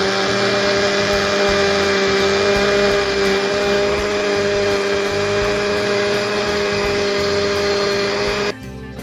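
Electric countertop blender running at a steady pitch, blending banana and boiled tempeh with water into a smoothie. It cuts off sharply near the end.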